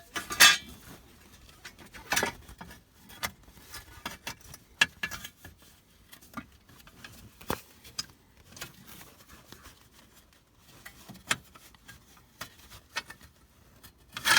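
Metal heat shield clinking and scraping as it is worked free and pulled off by hand: scattered, irregular clinks, the loudest about half a second and about two seconds in.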